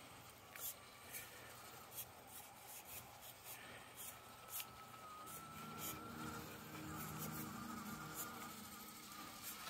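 Axial SCX24 micro RC crawler's small electric motor and gearbox whining faintly as it crawls over rocks, the whine holding steady from about halfway in, with scattered sharp clicks of the tires and chassis against the stone.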